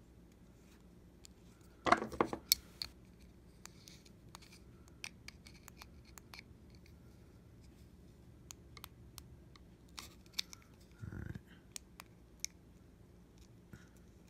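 Small metal parts of a tweezers' built-in LED light clicking and scraping as they are handled and fitted back together, with scattered light ticks and a louder cluster of clicks about two seconds in.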